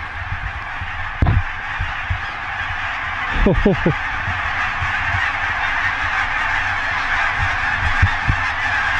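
Huge flock of lesser Canada and cackling geese calling overhead, thousands of high yelping honks blended into one steady din. Two low thumps, about a second in and at three and a half seconds, are the loudest moments.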